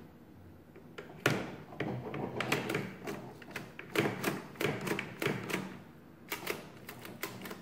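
Metallic clicks and clacks from the jammed mechanism of a 1916 Burroughs Class 3 adding machine as it is worked by hand to free it, with a quick run of clicks near the end.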